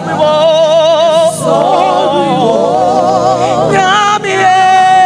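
Gospel worship song: sustained, heavily vibrato singing over a keyboard and band accompaniment, with long held notes.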